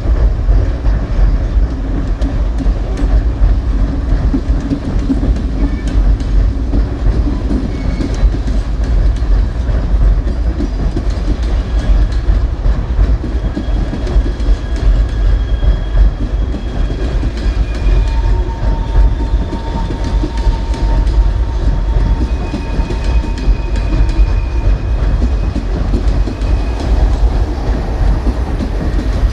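Freight train cars rolling past, a steady heavy rumble with wheels clacking over the rail joints. Faint thin squealing tones from the wheels come and go from about twelve seconds in.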